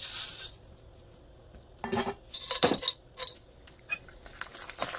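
Hard, dry fryum pellets clattering into a wok of hot oil in a few quick drops, about two to four seconds in. Near the end the oil starts to sizzle around them as they begin to fry.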